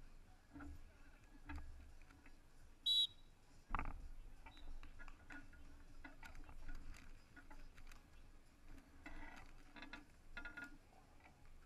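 Referee's whistle, one short shrill blast about three seconds in, signalling the serve, followed almost at once by a sharp thump close by. Scattered light clicks and faint calling voices follow.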